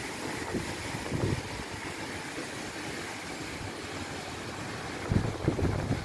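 Strong storm wind blowing through hedges and trees as a steady rushing hiss, with gusts buffeting the microphone in low rumbles about a second in and again near the end.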